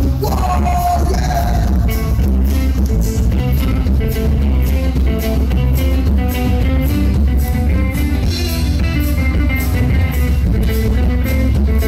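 Live band playing a passage without vocals: drum kit keeping a steady beat with cymbal strokes about twice a second, bass guitar, electric guitar and acoustic guitar. The low end booms heavily.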